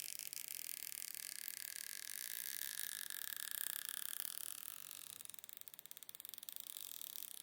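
Quiet sound of an iPhone 7 battery's stretch-release adhesive strip being pulled out, with a thin high tone that rises and swells for a few seconds before fading, over steady hiss.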